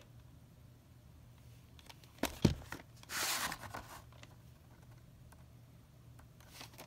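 VHS cassette being slid out of its cardboard sleeve and handled: a couple of sharp plastic knocks about two seconds in, then a brief papery scraping slide, and a few light clicks.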